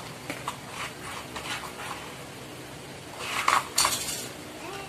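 Hard plastic toy race-track pieces clicking and knocking against each other and the floor as they are fitted together, with a louder clatter of several knocks about three and a half seconds in.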